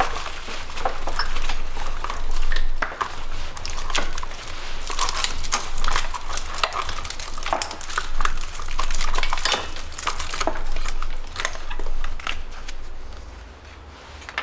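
Engine-bay wiring harness in ribbed plastic loom being pulled and shifted by gloved hands: a run of irregular crinkly rustles and light plastic clicks, dying down near the end.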